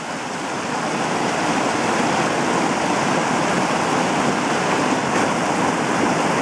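Fast mountain creek rushing in whitewater over rocks, a steady dense rushing of water that grows louder over the first couple of seconds and then holds even.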